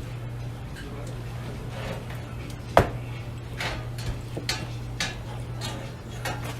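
Kitchen utensils and dishes clattering at a street-food stall: one sharp knock about three seconds in, then several lighter clinks, over a steady low hum.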